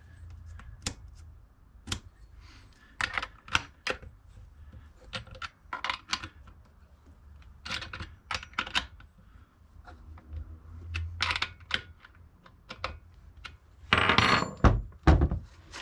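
Irregular metallic clicks and clinks of hand work on a chainsaw's bar and chain while the chain tension is adjusted, with a longer rasping noise near the end.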